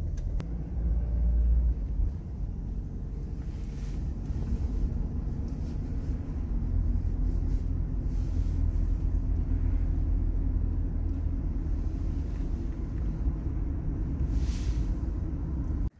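A taxi driving, heard from inside the cabin: a steady low rumble of engine and road noise.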